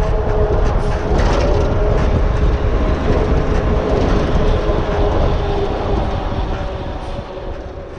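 Steady rumbling vehicle noise with a faint held hum running through it, beginning to fade out near the end.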